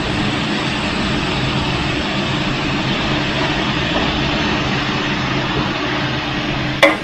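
Steady rushing noise of a gas wok burner running under a large wok of stir-frying food, with a single sharp knock near the end.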